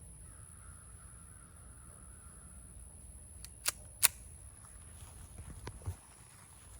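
Walther P22 pistol fitted with a DeadAir .22 suppressor firing subsonic .22 long rifle: two short, sharp cracks about a third of a second apart, the second louder, followed by a few faint clicks.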